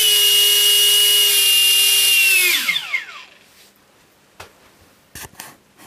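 Vasa 55 electric ducted fan driven by a Tenshock 1030/16 brushless motor, running at full speed with a steady high-pitched whine over a hiss, then winding down about two and a half seconds in, its pitch falling away quickly to a stop. A few faint clicks follow.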